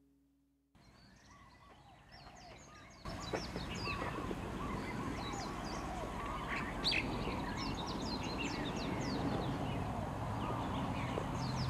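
Many birds chirping and calling at once over a steady background hiss. The sound cuts in about a second in and gets louder about three seconds in.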